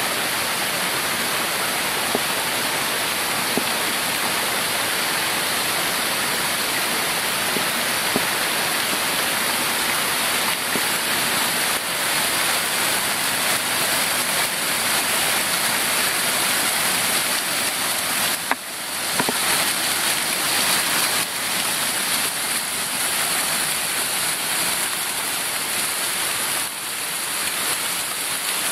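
Waterfall of many thin streams splashing down over moss-covered rock: a steady, even rush of falling water, with a brief dip about two-thirds through.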